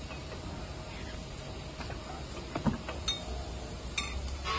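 A few light metallic clicks and clinks, with one louder knock a little over halfway through, as metal parts of a press are handled, over a steady low hum.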